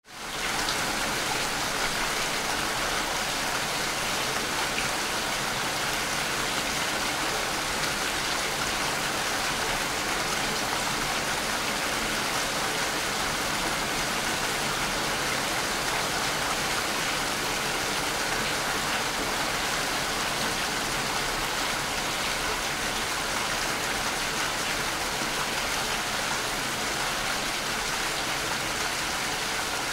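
Steady rainfall: a dense, even hiss of rain falling, fading in over the first half second and then holding constant without a break.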